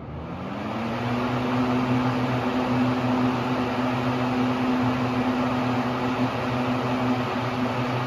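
Late-1960s Wards Signature 20-inch electrically reversible box fan, made by Hunter/Robbins & Myers, running in reverse (exhaust). Its motor hum rises in pitch over about the first second as the blades come up to speed, then holds steady under a loud, even rush of air. The fan's reverse sound is a ferocious, air-buffeting noise.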